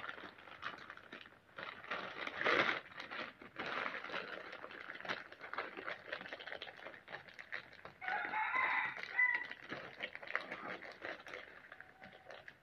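Packaging being handled, rustling and crinkling in irregular bursts. About eight seconds in, a bird call lasting over a second rises above the rustling, in the manner of a rooster crowing.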